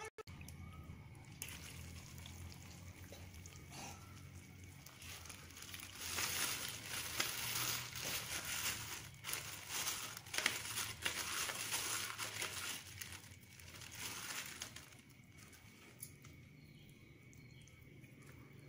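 Irregular scraping and crinkling as cooked sugar syrup for gulali is scraped and poured into a coconut-oil-greased basin, busiest in the middle and easing off near the end.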